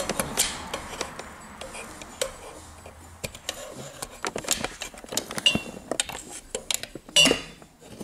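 A tool prying at the clips and carrier of a BMW E39's gear shifter: an irregular run of small clicks, taps and scrapes, with a couple of brief ringing clinks past the middle.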